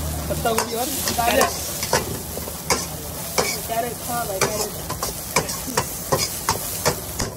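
Chopped vegetables sizzling in a hot wok while a metal ladle stirs and scrapes them, its strokes against the wok coming about once or twice a second.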